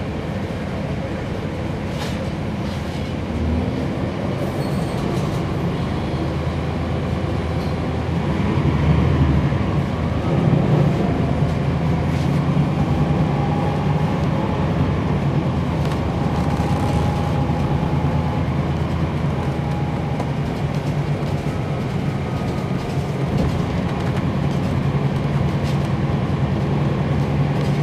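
Inside a NABI 40-SFW transit bus under way: its Cummins ISL9 diesel engine runs with a low steady drone over road rumble, swelling a few seconds in and again about a third of the way through.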